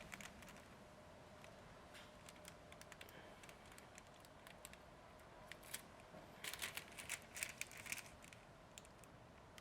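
Faint crinkling and light ticks from a sticker letter and its plastic backing being handled and pressed into place, mostly in a short flurry from about five and a half to eight and a half seconds in, over near silence.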